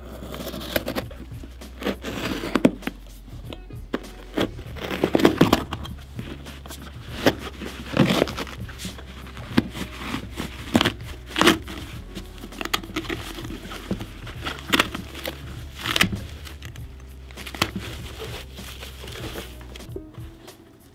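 Leather upper of a Caterpillar Second Shift work boot crinkling and creaking in short, irregular crackles as it is handled and pierced with an awl, over background music.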